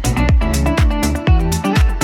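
Electronic dance background music with a steady four-on-the-floor kick drum, about two beats a second, under sustained synth and bass notes.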